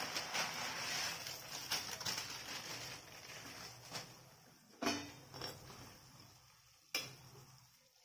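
Crackly patter for about three seconds, fading, as dry instant-noodle cakes go into boiling broth in a pan. Then a few sharp knocks of a steel spoon against the pan, the loudest about five seconds in and another about seven seconds in.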